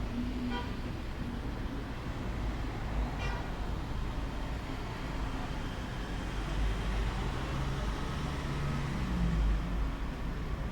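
Steady low outdoor rumble with two brief high-pitched tones, one about half a second in and one about three seconds in.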